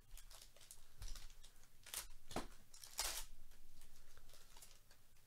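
Foil wrapper of a baseball card pack crinkling and tearing as it is opened by hand, with rustling and several sharp crackles, the loudest about three seconds in.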